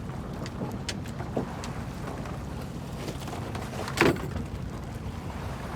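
Wind rumbling on the microphone over the sea noise of a small fishing boat, with scattered light clicks and one sharper knock about four seconds in.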